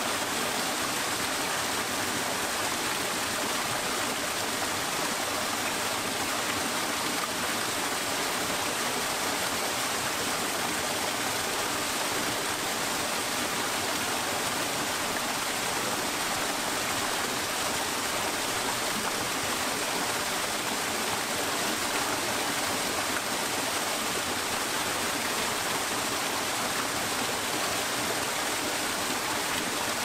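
Small waterfall spilling into a rocky pool of a freshwater stream: a steady, even rush of falling and splashing water.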